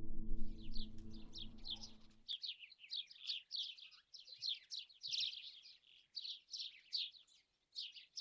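A small songbird chirping over and over: quick, high notes that each slide downward, about four a second, in runs with short pauses. Background music plays under it and cuts off about two seconds in.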